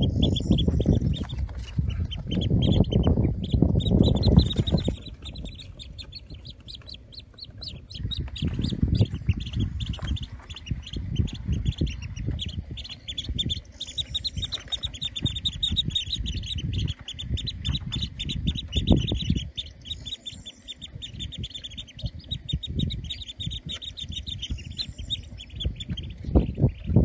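Ruddy shelduck ducklings peeping: a rapid, continuous run of high chirps from the brood. A low rumble comes over it in the first five seconds and again about eight seconds in.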